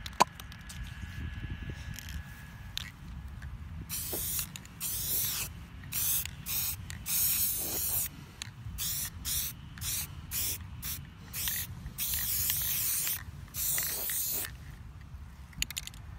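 Aerosol spray-paint can spraying in a run of separate hisses, some short and some longer, starting about four seconds in.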